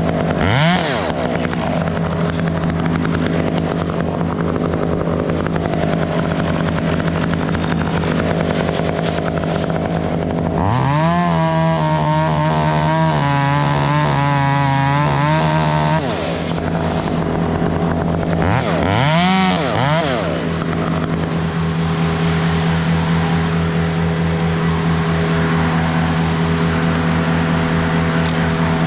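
Chainsaw engine running with the throttle opened up three times, near the start, about 11 seconds in (held high for about five seconds) and about 19 seconds in, over a steady engine hum.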